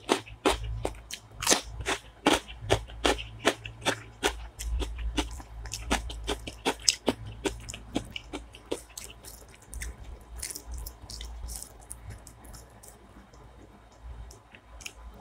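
Crisp crunching of a raw cucumber slice being bitten and chewed close to the microphone, about two or three crunches a second, thinning out after about nine seconds into fainter chewing and the soft sounds of fingers mixing rice on a plate.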